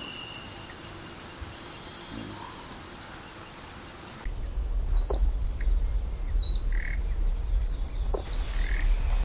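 Wild birds calling over a natural forest background: at first a thin held whistle and scattered calls over a faint hiss. About four seconds in, the background switches suddenly to a louder one with a steady low rumble, and three short, high chirps are heard over it.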